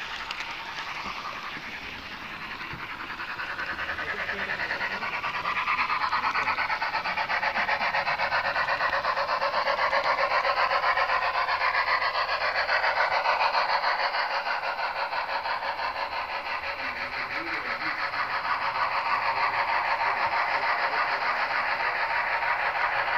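HO-scale model train running along the track: a steady rasping whir of motor, gears and wheels on rail, growing louder a few seconds in, then swelling and easing.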